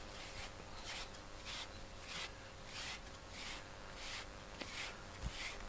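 A grooming brush swept through a cat's fur in steady, even strokes, a soft brushing hiss about every half second.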